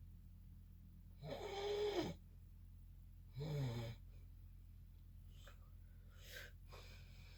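Snoring during sleep: two snores about two seconds apart, the second shorter and lower. A few faint clicks and rustles follow near the end.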